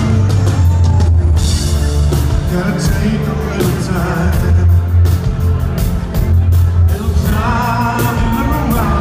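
A rock band playing live, heard from within the audience: a power ballad with regular drum beats, heavy bass and keyboards, and a male lead voice singing one phrase around the middle and another near the end.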